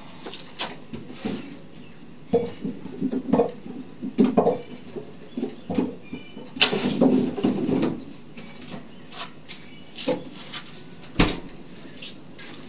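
A small refrigerator is opened and someone rummages inside it: scattered knocks and clatters, with a longer rustling, scraping stretch about halfway through. A sharp thump comes near the end as the door shuts.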